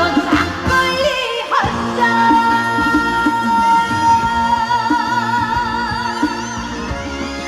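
Female trot singer singing live over band accompaniment: a quick upward vocal slide, then one long held note of about five seconds that breaks into vibrato partway through.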